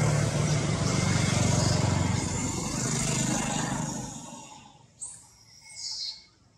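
A passing motor vehicle's engine running steadily, then fading away about four seconds in. Two short high chirps follow near the end.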